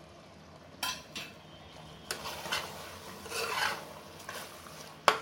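A spoon stirring and scraping through the mutton masala in a pressure cooker: uneven rasping strokes against the pot from about two seconds in, with a sharp knock near the end.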